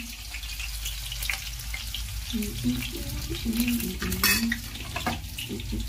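Oil sizzling steadily in a pan on a gas stove with green chillies frying in it, and a metal spatula clinking sharply a couple of times about four and five seconds in.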